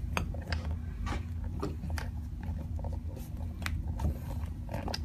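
Irregular clicks, taps and rustles of things and the camera being handled while packing, over a steady low hum.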